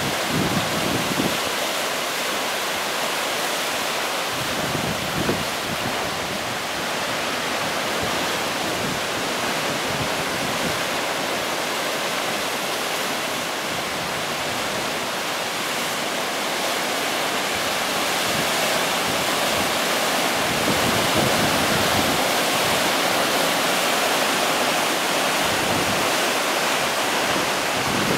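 Ocean surf washing in over volcanic boulders: a steady rushing of breaking waves and foam, growing a little louder about two-thirds of the way through. Wind rumbles on the microphone at times.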